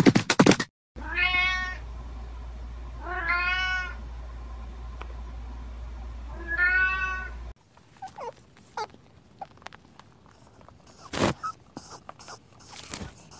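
Tabby-and-white domestic cat meowing three times, each call rising then falling, over a low steady hum. After that come faint scattered clicks and taps.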